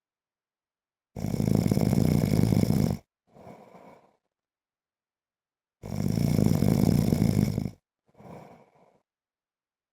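A sleeping man snoring: twice, a loud, fluttering snore about two seconds long on the breath in, each followed by a short, much fainter breath out and a pause of a couple of seconds.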